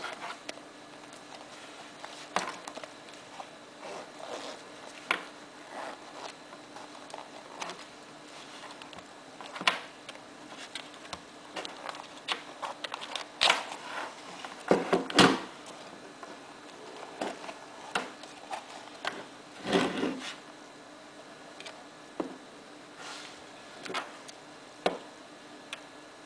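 Handling noise from a Belomo Chaika-II camera and its leather case on a wooden desk: scattered small clicks, rubbing and light knocks as the case is opened and the camera is taken out and turned in the hands. The handling is loudest about halfway through.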